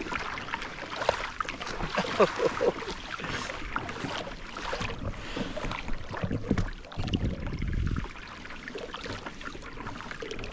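Water splashing and sloshing against a small boat's hull while trolling at sea, with wind buffeting the microphone for the last few seconds.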